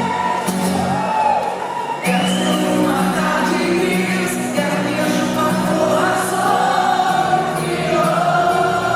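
A live band plays a song with singing voices over it, held bass notes under a gliding vocal line.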